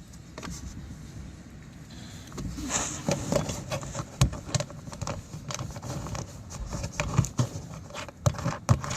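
Light metal clicks and knocks of small hardware being handled as nuts are threaded onto bolts by hand. The clicks come irregularly from about two and a half seconds in, over a low rumble.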